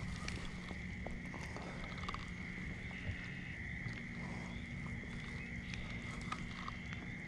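Quiet lakeside background: a steady low rumble with a thin, steady high-pitched hum over it, and a few faint, scattered clicks as a spinning reel's handle is slowly turned.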